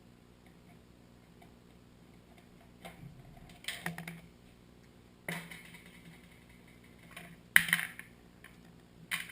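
Clicks, clinks and short scrapes of hand tools on small metal parts, coming in a few brief clusters with quiet between, the loudest about two thirds of the way in, as the mini bike's chain master link is pried loose.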